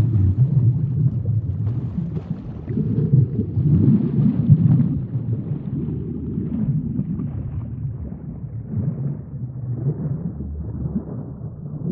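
Deep, low underwater sea ambience: a murky rush of water that swells and eases every few seconds.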